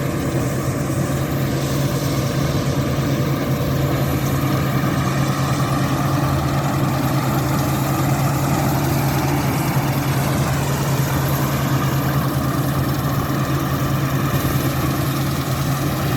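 Combine harvester running steadily while harvesting oats, its engine drone holding an even pitch with no breaks.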